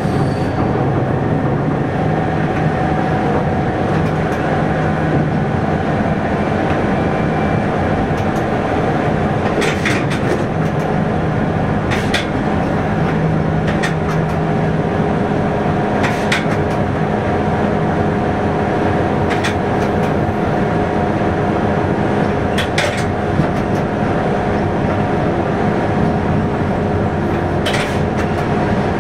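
Local passenger train running steadily, heard from inside the driver's cab: a constant engine and running drone, with sharp clicks every few seconds.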